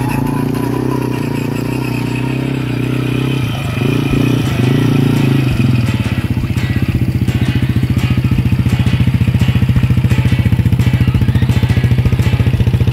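An ATV's motor running steadily with a low hum, taking on a fast, even pulsing about six seconds in.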